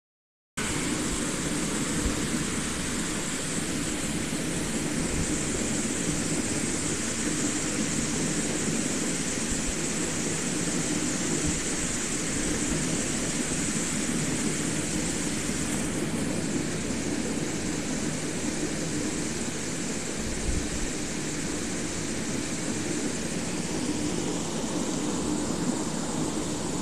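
Steady drone of a moving road vehicle heard from inside, an even hiss over a continuous low hum with no change in pace.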